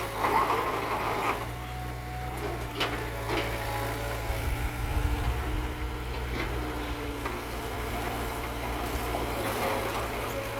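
Mini excavator engine running steadily, with a few short sharp knocks scattered through.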